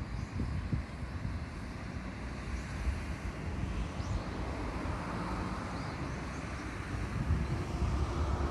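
Road traffic noise from cars passing, a steady rumble that swells about halfway through and again near the end, with a few faint high bird chirps over it.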